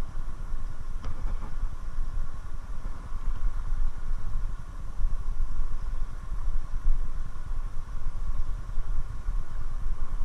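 Steady low rumble of a fast river current rushing over rocks, with the level flickering up and down.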